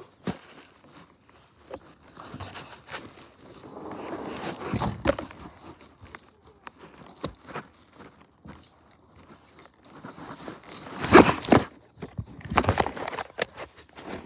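Footsteps with rustling, scraping and knocking as things are handled, and a couple of louder bursts of rustling near the end.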